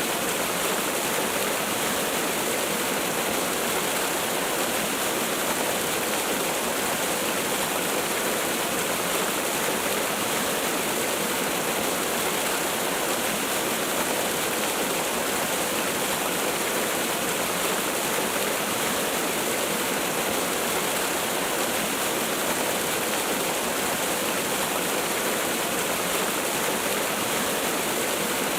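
Waterfall: water falling and splashing in a steady, even rush, with no changes or separate sounds.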